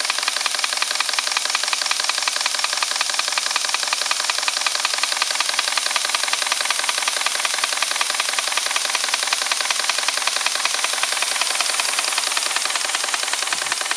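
Twin-cylinder EIWI model steam engine running steadily, a rapid even beat of its cylinders and motion work over a hiss.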